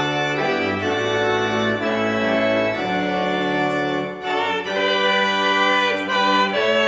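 Church organ playing a slow hymn in sustained chords, changing chord about once a second, with a brief break between phrases about four seconds in.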